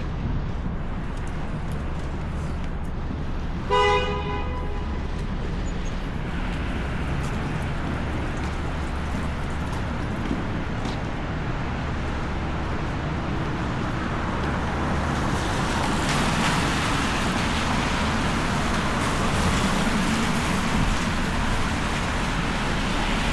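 Steady downtown street traffic with a car horn sounding once, briefly, about four seconds in. The traffic noise grows louder and more hissy from about fifteen seconds in.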